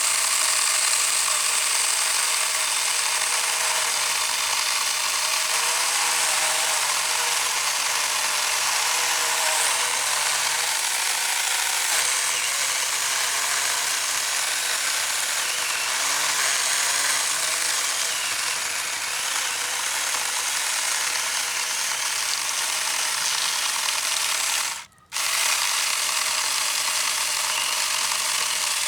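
Saker mini battery-powered chainsaw running under load, its chain cutting through a thick piece of firewood. The sound cuts out briefly about 25 seconds in, then starts again.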